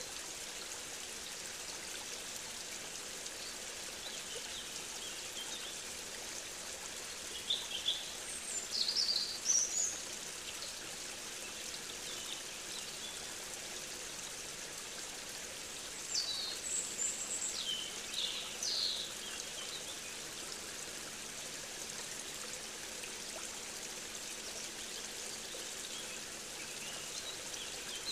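Outdoor nature recording: a steady rush of running water from a stream, with short, high bird calls in two bursts, about eight seconds in and again around sixteen to nineteen seconds in.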